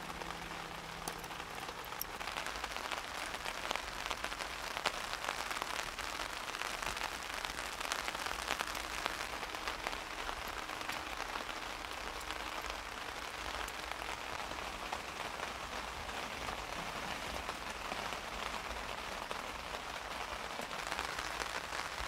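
Steady rain falling, its drops making many small ticks on a surface.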